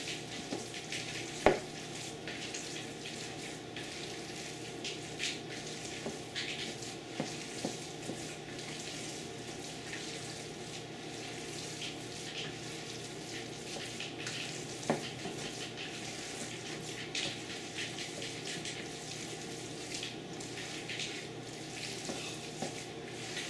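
Hands squishing and kneading a moist mixture of flaked gar fish and breadcrumbs in a plastic bowl: a steady soft crackle and squelch, over a faint steady hum. A sharp knock comes about a second and a half in, and a smaller one around the middle.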